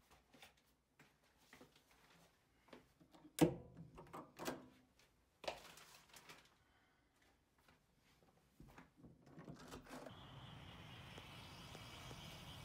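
Apartment front door being worked: a run of sharp clicks and knocks from its lock and lever handle, the loudest about three and a half seconds in. From about ten seconds in, a steady outdoor background noise follows.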